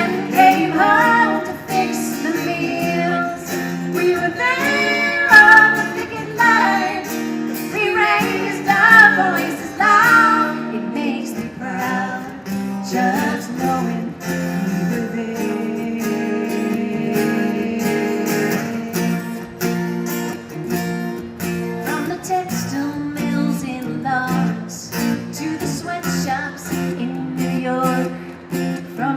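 A live folk song: women singing with a strummed acoustic guitar.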